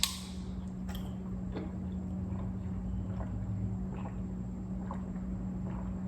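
Quiet chewing of eggs, with a few faint clicks, over a steady low hum.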